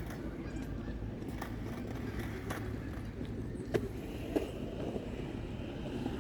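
Skateboard wheels rolling on concrete with a steady low rumble, broken by a few sharp clacks of the board, the loudest two a little past the middle.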